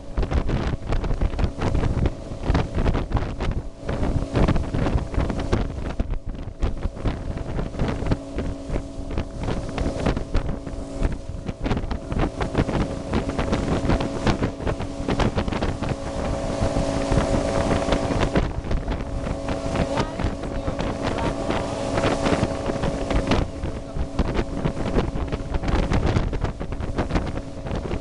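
Motorboat engine running steadily under way, with wind buffeting the microphone and a louder rush of water hiss a little past the middle.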